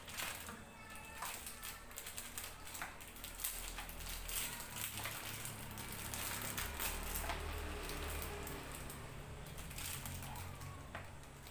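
A metal spoon and fork tossing shredded papaya and carrot in a plastic tub: irregular clicks and scrapes of the utensils against the plastic, over a low hum.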